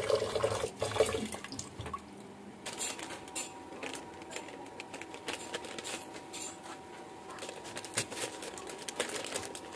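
Tap water running into a rice cooker's inner pot as rice is rinsed by hand, stopping about two seconds in. After that come quieter light clicks and handling noises.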